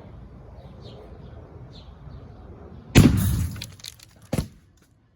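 A stick of dynamite going off inside a microwave oven about three seconds in: one sharp, loud blast with the sound of breaking glass and metal, dying away over about half a second, then a second, shorter bang a little over a second later.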